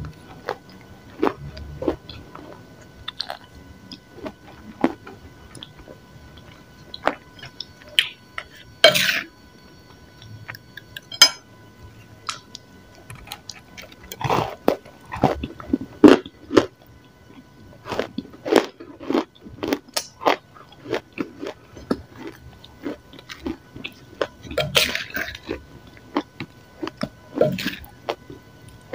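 Close-miked biting and chewing of a dry, crumbly grey slab: a long run of irregular crisp crunches, some much louder than the rest.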